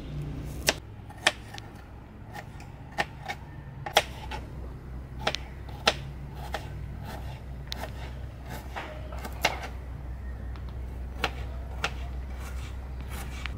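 Knife knocking on a cutting board as shallots are sliced: irregular sharp knocks, roughly one a second, some with a short ring.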